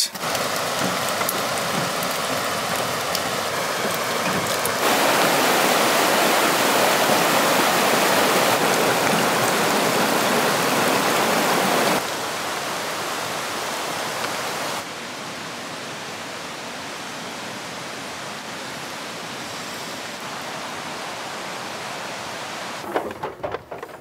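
Steady rain heard as an even hiss across several shots, the level stepping up about five seconds in and down again around twelve and fifteen seconds. In the later part, rain is drumming on the truck camper's metal roof, heard from inside the cabin.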